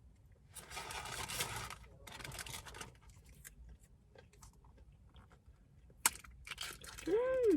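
Paper fast-food wrapping rustling and tearing in two stretches, then a sharp click and more rustling, ending in a short squeak that rises and falls in pitch.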